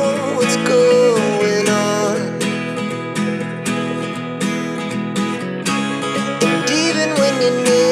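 Background music with guitar, a gliding melody line and a steady beat.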